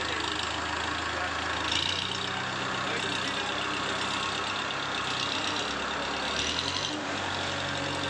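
Tractor diesel engine of a tractor-mounted loader running under load, its speed stepping up and down a few times as the snow-filled bucket is driven and lifted.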